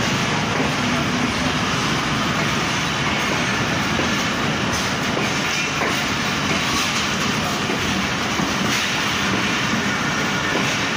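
Pakistan Railways passenger coaches rolling past on arrival: a steady, loud rumble of steel wheels on the rails with some clatter over the track.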